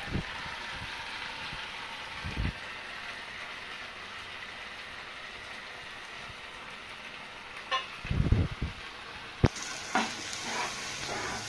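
Onion-tomato masala with ground spices sizzling steadily in hot oil in a pan. About eight seconds in come a few knocks and a sharp click, and in the last seconds a spatula stirs and scrapes the masala in the pan.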